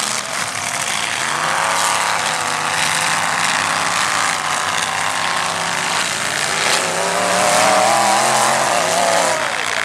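Demolition derby pickup engines revving hard, their pitch rising and falling as the trucks spin their wheels in the dirt, loudest about eight seconds in.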